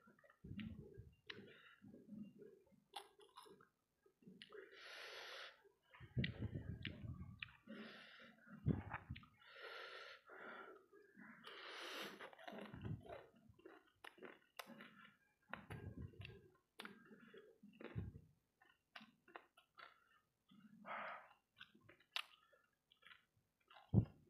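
Chewing and mouth noises of a person eating sauce-coated fried rice balls: irregular wet clicks and short noisy bursts, with breaths, at a faint level.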